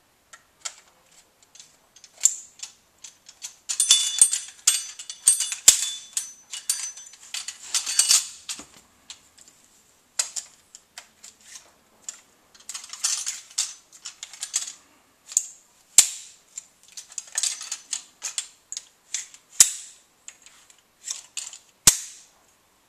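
Aluminium rods and plastic brackets of a Maxview MXL052 folding TV aerial being handled, unfolded and locked into place: an irregular run of rattles, scrapes and clicks, broken by single sharp snaps every few seconds.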